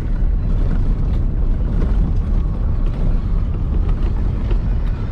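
Pickup truck driving slowly on a rough dirt road, heard from inside the cab: a steady low rumble of engine and tyres, with a few small rattles and knocks.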